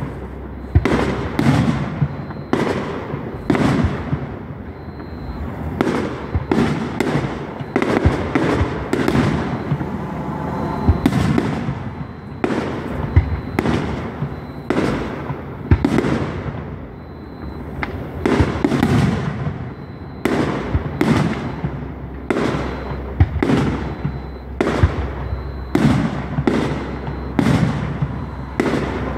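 Aerial fireworks shells bursting in an irregular string of bangs, about one to two a second, each trailing off in a rumbling echo.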